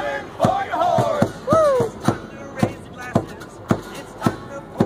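Live acoustic band music: a steady thumping beat about twice a second under strummed acoustic guitars, with voices singing in long sliding notes during the first two seconds.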